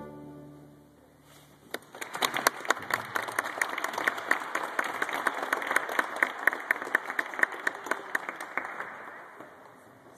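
The last held chord of a string orchestra dies away, then an audience claps for about eight seconds, the applause thinning and fading out near the end.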